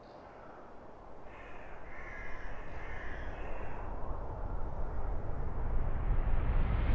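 Cinematic riser sound effect: a rumbling swell of noise that grows steadily louder and rises in pitch, building toward a sudden cut. Crows caw a few times from about a second in.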